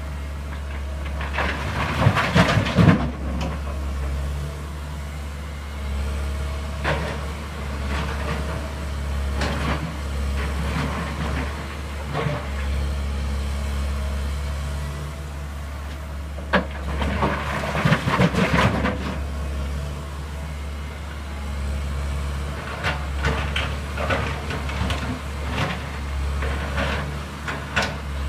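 Diesel engine hum from a Komatsu PC188MR excavator and a Volvo FMX tipper truck, steady throughout. Over it come bursts of clattering and banging as rock blocks are dropped into the truck's steel tipper body. The loudest bursts come about two seconds in and again around eighteen seconds in, then a run of separate knocks near the end.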